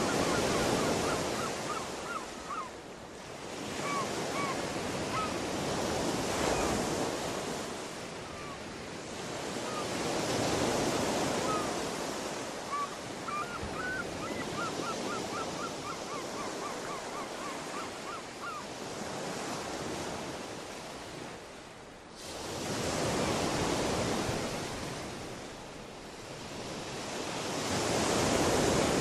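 Ocean surf: waves washing in and drawing back in slow swells every few seconds. Small birds call above it in short chirps, with a quick run of them in the middle.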